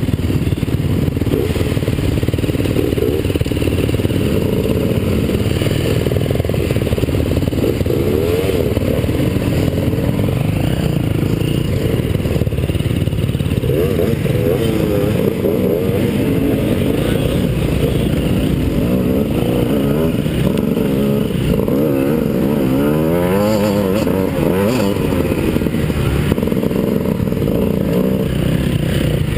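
Enduro dirt bike engines running on a rough trail, the nearest one loudest, with their pitch rising and falling repeatedly as the riders blip the throttle on and off at walking pace in a queue.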